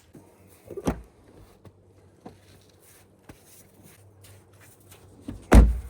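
Gear being stowed inside an SUV: a sharp knock about a second in, light clicks and rustles, then a loud, heavy thud near the end.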